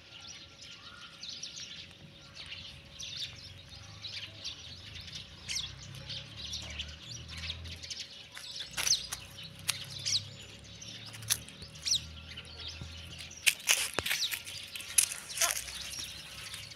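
Small birds chirping, many short quick calls one after another, with a few louder, sharper chirps near the end.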